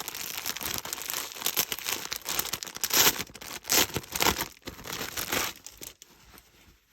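Packaging crinkling and rustling in irregular crackles as items are handled, dying down about six seconds in.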